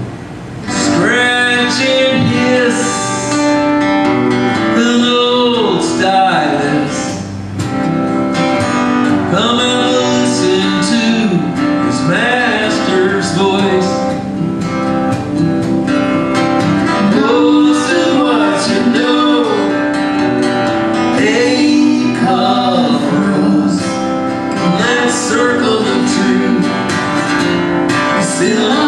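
Folk song performed live: a strummed acoustic guitar with a man and a woman singing together.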